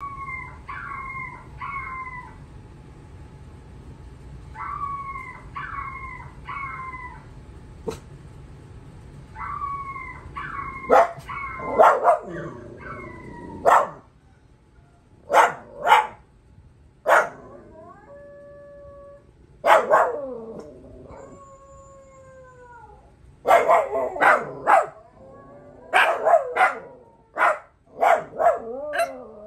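Recorded dog howls and yips of different breeds playing from a TV, answered by dogs in the room barking and howling. The first part holds groups of three short, high calls; from about 11 seconds in, loud sharp barks come thick and fast, mixed with long howls that hold a note or slide down in pitch.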